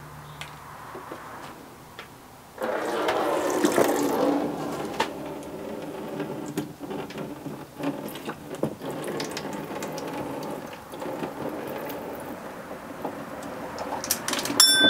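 Leftover coolant pouring and splashing out of a Honda K20 engine block into a drain pan as the block is turned over on its stand. The pour starts suddenly about two and a half seconds in, with scattered clicks and knocks from the block and stand.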